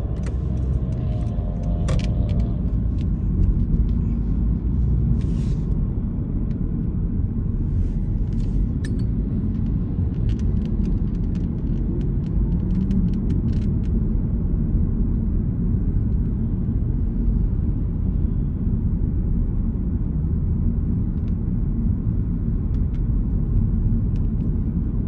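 A car driving along, heard as a steady low rumble of engine and road noise, with a few faint clicks now and then.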